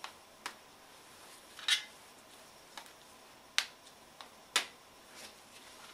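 Irregular sharp clicks and light taps of small engine parts being handled on the bench, about eight in a few seconds, with three louder ones.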